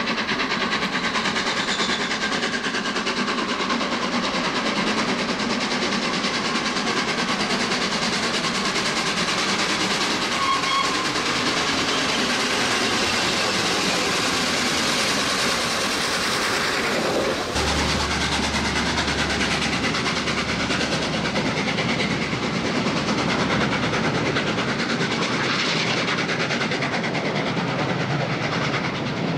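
Steam locomotive 60163 Tornado, a three-cylinder Peppercorn A1 Pacific, working hard up a steep bank with a heavy exhaust as it approaches. About seventeen seconds in it passes beneath, and the sound turns to its coaches rolling by on the rails.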